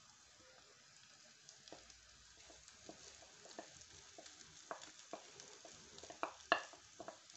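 Wooden spatula scraping and tapping as cooked rice is pushed out of a serving dish into a small frying pan, over a faint steady sizzle of hot oil. The scrapes and taps come irregularly and get louder in the second half.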